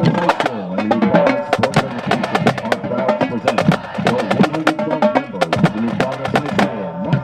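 Marching band drumline playing: rapid, crisp snare drum strokes over pitched music with a moving melody.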